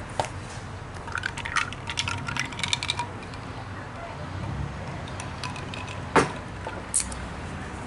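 A man drinking from a bottle: liquid and swallowing sounds, with small clicks as the bottle is handled, and a sharp knock near the end.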